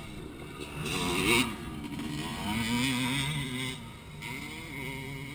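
Motocross dirt bike engines revving on the track, the pitch rising and falling as the riders work the throttle; loudest about a second in.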